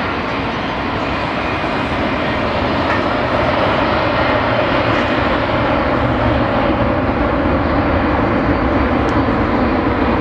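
Boeing 737's jet engines, heard as steady jet noise while the airliner rolls out along the runway after landing.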